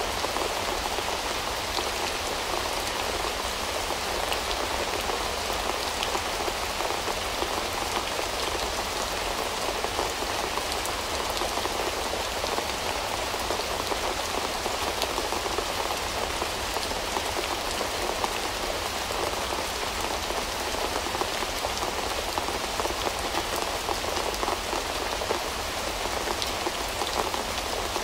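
Steady rain falling, with a dense patter of individual drops ticking through it.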